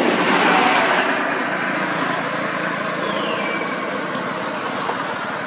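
Traffic noise from a passing motor vehicle: a steady rush that swells in the first second, then eases to a constant level. A faint short falling whistle sounds about three seconds in.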